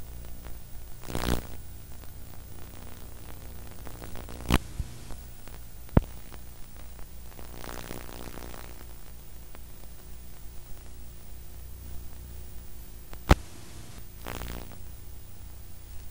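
Blank videotape playback noise: a steady low electrical hum under hiss, broken by a few sharp clicks and short crackly bursts.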